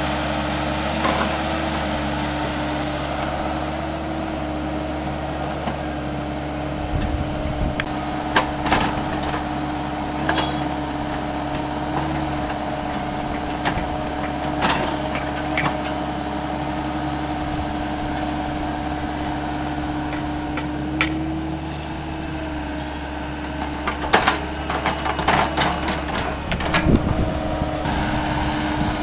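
Lonking mini excavator's diesel engine running steadily under working load, its pitch shifting slightly now and then. Sharp knocks and clatter from the bucket digging soil come through here and there and thicken near the end.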